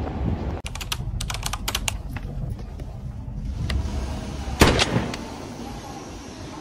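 Low steady rumble of travel noise, with a quick irregular run of sharp clicks and taps about a second in and a single loud clack a little after the middle.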